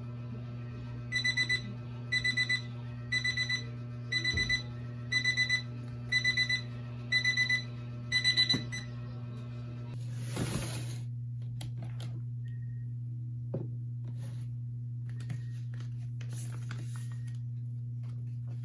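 Electronic cube timer beeping its alarm: clusters of quick high beeps, repeating about once a second for roughly eight seconds, then stopping. Later comes a brief rustle and a few light taps of small items set down on the desk.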